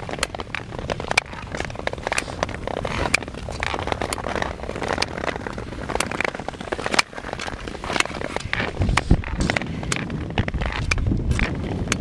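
Long-track clap skates striding on natural river ice: blades scraping and hissing on the ice, with frequent sharp clicks as the hinged blades snap back against the boots.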